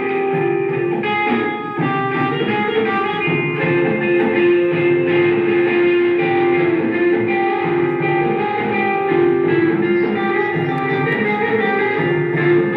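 Background music led by guitar, with steady held notes and a regular beat.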